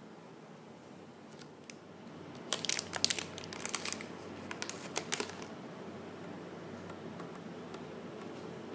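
Packaging of a new HP ink cartridge crinkling and tearing as it is unwrapped, a burst of crackles lasting about three seconds.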